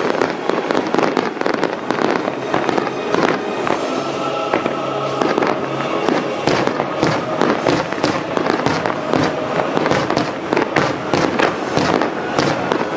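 A barrage of aerial fireworks going off in quick succession, dense overlapping bangs and crackle with no pause, over music played along with the display.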